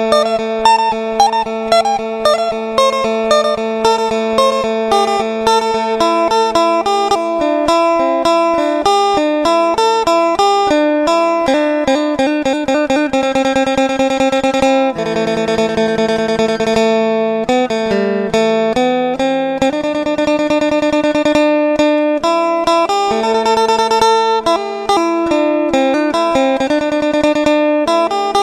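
Isan phin music: a plucked lute playing a fast, lively melody over a steady drone.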